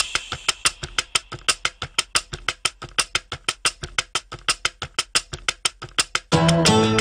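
Opening of a TV theme tune: a dry, rapid ticking beat of even clicks, about six a second, on its own. About six seconds in, fuller music with plucked guitar and bass notes comes in over it.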